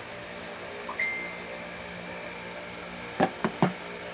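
Small metal driver bits being handled: one clink about a second in that rings briefly, then three quick clicks near the end, over a steady background hum.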